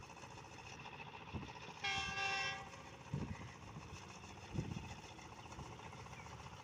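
A horn sounds once, briefly, about two seconds in: a single steady pitched tone. Under it is a faint steady engine hum and a few soft low thumps.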